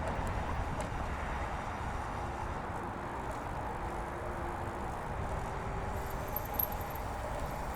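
Road bike rolling along a paved bike path: a steady rumble of tyres and wind.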